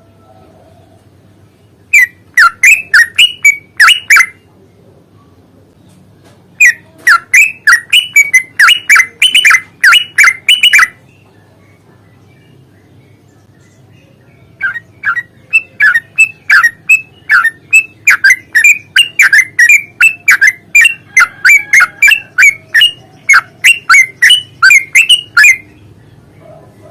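Yellow-vented bulbul (trucukan) singing its long, rapid chattering song: loud runs of quick, sharp repeated notes, about four a second, in three bouts, with pauses after the first two.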